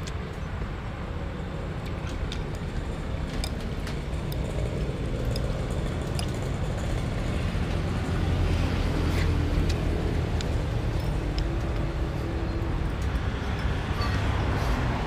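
Steady rumble of road traffic, louder from about eight seconds in, with scattered light clicks of chopsticks and a spoon against a noodle bowl.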